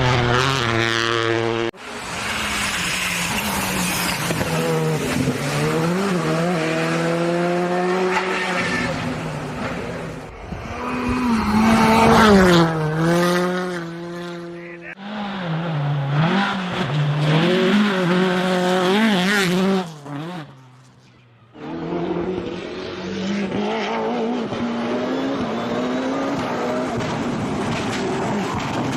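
Rally cars driving flat out, several in turn: engine pitch climbs through each gear, drops at every change, and climbs again. There is a brief quieter stretch about two-thirds of the way through.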